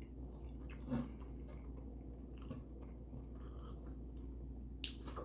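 A person chewing a mouthful of hot dog close to the microphone, with small mouth clicks and a brief louder mouth sound about a second in.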